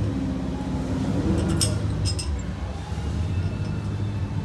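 A few light metallic clinks, three close together a little under two seconds in, as the anchor light housing knocks against the stainless steel tower tube while its wires are fed back inside. A steady low hum runs underneath.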